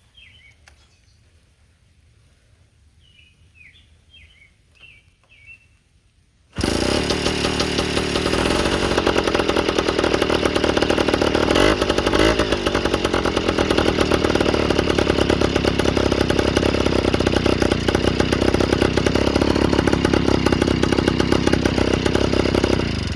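Birds chirp for the first six seconds. Then the Yamaha Towny moped's small two-stroke engine starts abruptly and runs loud and steady for about sixteen seconds before it cuts off near the end. Exhaust is leaking out at the loosely fitted aftermarket pipe, and it is not what it is supposed to sound like.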